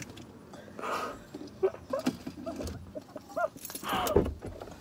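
A woman's short, high squeaky vocal sounds and breathy giggles, without words, ending on a sharp click.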